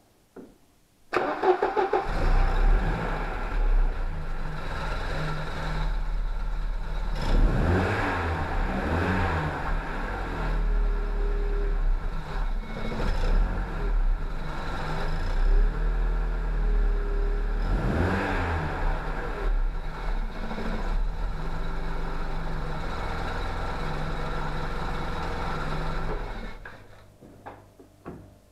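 Mercedes 190E petrol engine started with a brief crank about a second in, settling to a steady idle. It is revved briefly a few times, then switched off a couple of seconds before the end.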